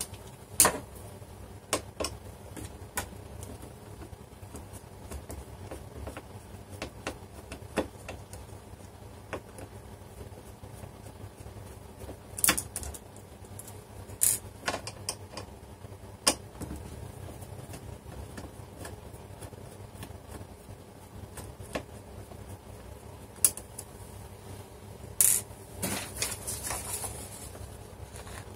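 Scattered clicks, taps and knocks of screwdrivers and small screws being handled while a metal bracket is unscrewed inside a point-of-sale computer's case, over a faint steady low hum. Near the end comes a cluster of knocks with a rustle of paper.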